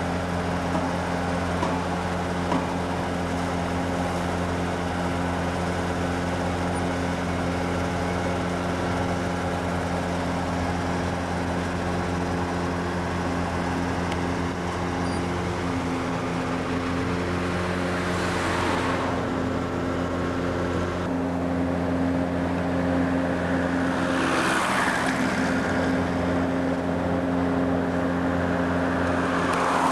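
Steady drone of construction-site machinery running, several fixed low tones held without change. A few short whooshes swell and fade over it, about two-thirds of the way in, again a few seconds later, and at the end.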